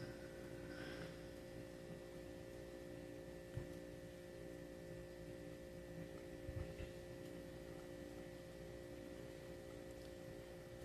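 Quiet room tone with a faint steady hum made of several held tones, and a couple of faint soft knocks, one about a third of the way in and one about two-thirds in.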